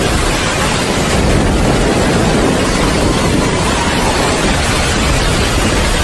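Steady rain falling, a dense even hiss with no separate drops or pauses standing out.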